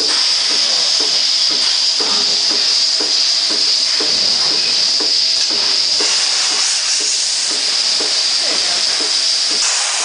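Lely Astronaut robotic milking machine running while a cow is milked: a steady, loud hiss of air through its vacuum and milk lines, with faint irregular ticks beneath it.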